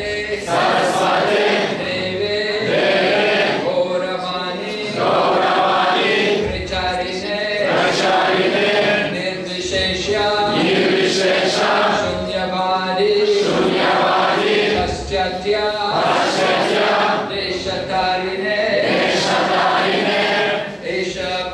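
A crowd of devotees singing a devotional chant (kirtan) together, many voices repeating the same phrases over and over.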